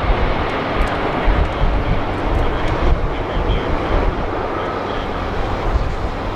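Boeing 767 airliner on landing approach, passing low and close, its twin turbofan engines making a steady jet rush.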